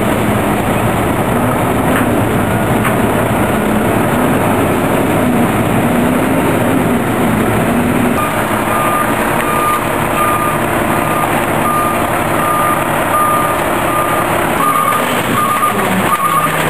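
Mack front-loading garbage truck's engine running, its pitch rising and falling, and from about halfway through a reversing alarm beeping steadily as the truck backs up to tip its load.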